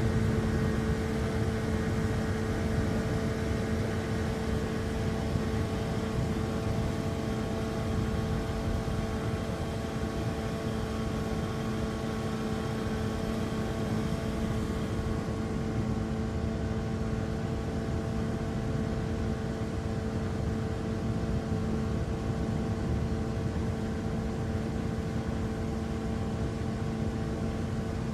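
Boat engine running at a steady, unchanging speed, a constant hum over a rushing noise.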